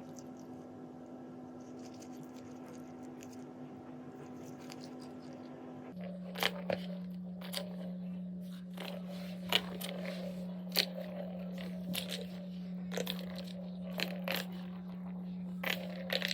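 A cat biting and tearing at grass, with irregular crisp crunching bites about one or two a second from about six seconds in, over a steady low hum.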